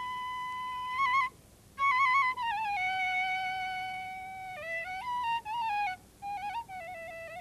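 Background music: a solo flute playing a slow melody of long held notes, ornamented with quick trills and broken by short pauses for breath.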